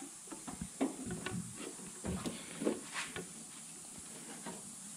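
Handling noise from a rubber radiator hose being worked into place on the engine: a string of short scrapes, creaks and light taps for the first three seconds or so, then only faint hiss.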